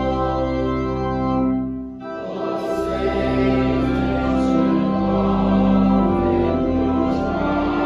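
Congregation singing a hymn with organ accompaniment, the organ holding long sustained bass notes. The music breaks off briefly about two seconds in, between lines, then carries on.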